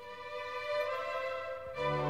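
Background music: one long held note, with lower notes joining near the end, in a bowed-string sound.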